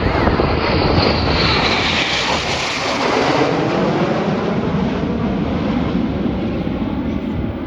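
Aircraft flying past at a display, a loud engine roar whose pitch falls as it passes over, then running on more steadily as it moves away.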